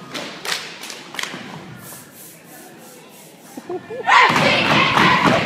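Dance team's boots stomping on a wooden gym floor, a few sharp thuds in the first second and a half, then quieter. About four seconds in, loud voices break out shouting and cheering.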